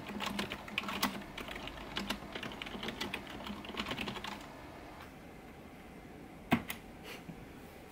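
Fast typing on a computer keyboard, a rapid run of keystrokes that stops about four and a half seconds in, followed a couple of seconds later by a single louder click.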